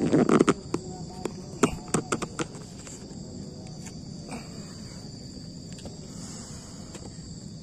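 Footsteps and knocks in the first couple of seconds, over a steady high-pitched insect chorus that carries on alone for the rest.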